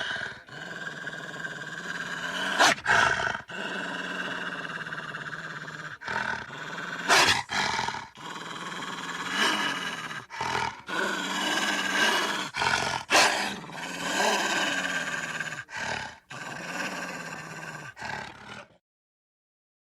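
Cartoon dogs growling and snarling in a steady rumble, broken every few seconds by short, loud barks. The sound cuts off about a second before the end.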